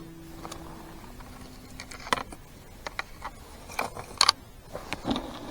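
Minelab X-Terra 705 metal detector sounding steady low tones for about two seconds, the pitch stepping once, followed by scattered clicks and knocks.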